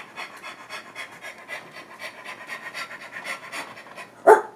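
A dog panting fast and raspily, about six breaths a second. One short, loud call cuts in near the end.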